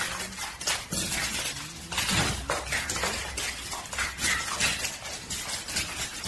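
A dog's claws clicking and skidding on a polished marble floor as it scrambles and lunges in play: a rapid, irregular run of sharp clicks and scrapes.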